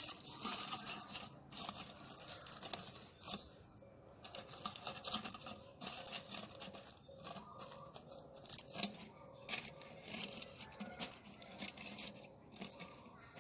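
Aluminium foil crinkling and crackling in uneven bursts as it is pressed and crimped by hand over the mouth of a firework mortar tube, sealing it against moisture.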